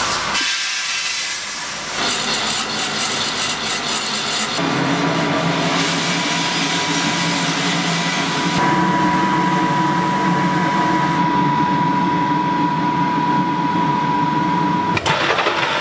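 Drum coffee roaster running: a steady mechanical hum with the rushing, scraping noise of coffee beans tumbling and being stirred round the cooling tray. The sound changes abruptly several times, and a thin steady whine joins from about halfway.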